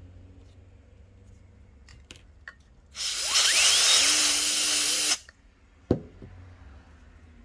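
A burst of compressed air from an air duster, about two seconds of loud hissing aimed at the laptop's cooling fan, with a whine rising in pitch inside it as the fan is spun. One sharp click follows about a second later.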